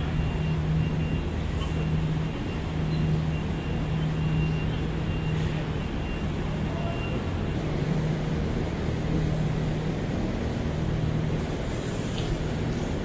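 Steady city street traffic: a constant wash of road noise with the low hum of a heavy vehicle's engine idling, fading in and out.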